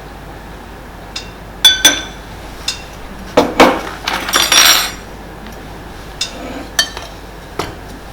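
A spoon clinking and scraping against a dish while spooning out Eton mess: a series of separate ringing clinks, with a longer scrape about four seconds in.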